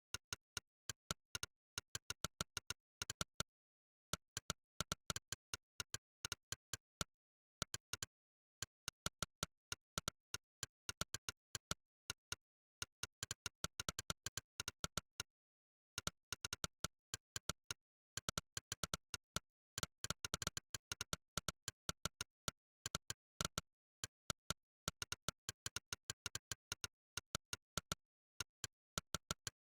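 Monkeytype's synthesized 'click' typing sound, one sharp click per keystroke, in fast irregular runs as text is typed. It breaks off in short pauses of complete silence, about four seconds in, near eight seconds, and around fifteen seconds.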